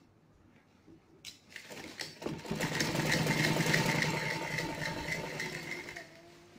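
Domestic sewing machine stitching a seam through fabric. After a few faint clicks it starts up about a second and a half in, runs steadily with a rapid, even stitching rhythm for about four seconds, and stops near the end.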